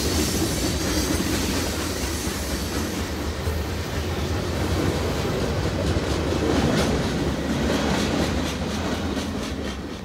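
Freight train cars rolling past at speed: a steady rumble of steel wheels on rail with repeated clicking of the wheels over the track, the clicks most distinct in the last few seconds.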